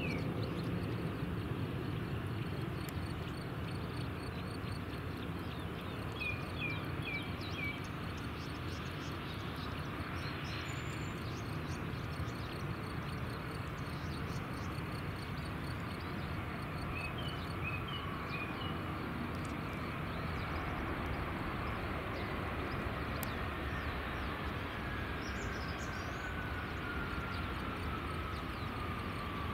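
Airbus A321 jet landing and rolling out: a steady low rumble from the engines, with a faint whine that slowly falls in pitch over the last ten seconds as the jet slows. Small birds chirp in short runs twice.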